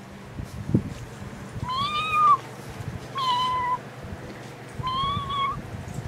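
Three meows, each lasting well under a second, with a clear high pitch. The first rises and falls, and the next two are steadier.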